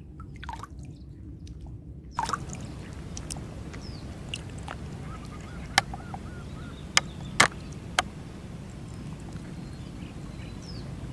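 Outdoor ambience by the water: a steady low rumble with faint bird calls and a few sharp clicks, the loudest about seven seconds in.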